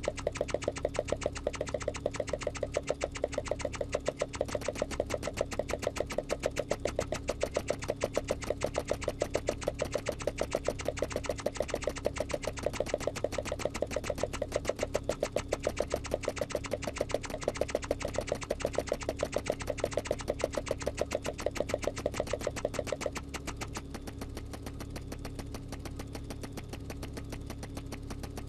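A small machine running: rapid, evenly spaced clicking over a steady hum. Most of the way through the clicking drops away and the hum carries on.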